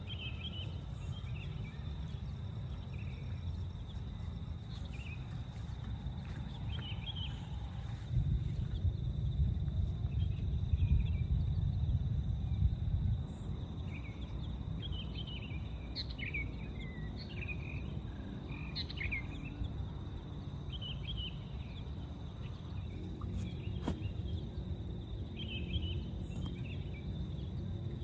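Forest ambience: birds call in short chirping phrases again and again over a steady high insect drone and a low rumble that swells for a few seconds near the middle. A single sharp click comes near the end.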